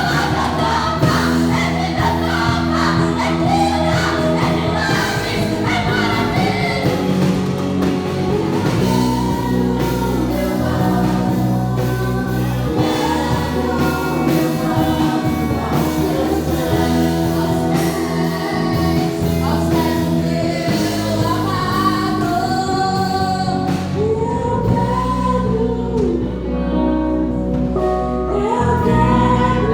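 Gospel worship music: sung melody over sustained keyboard or band chords, with several voices singing together.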